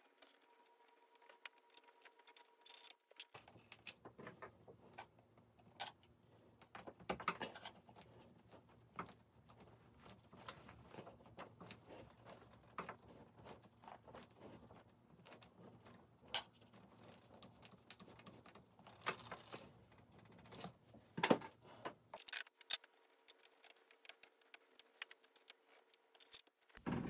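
Faint, scattered clicks and scrapes of screws and small hand tools as screws are driven into a scooter's clear plastic battery cover. A faint steady hum sits under the clicks for most of the middle.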